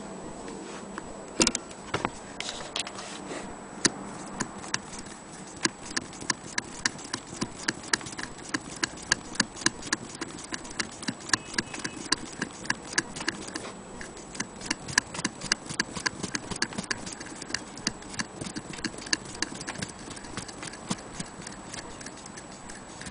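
Antique Willcox & Gibbs sewing machine being run, its mechanism clicking at about two to three clicks a second, with a few scattered knocks at first.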